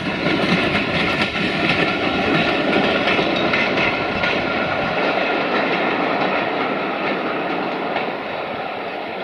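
Freight train of bulk-powder hopper wagons rolling past, steel wheels clicking over the rail joints under a steady rumble. The sound eases off near the end as the last wagon pulls away.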